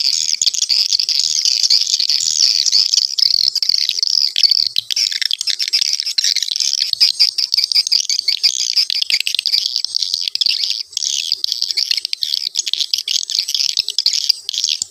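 Swiftlet lure-call recording (suara panggil walet) playing: dense, continuous chirping and twittering of swiftlet calls at a fairly fast tempo.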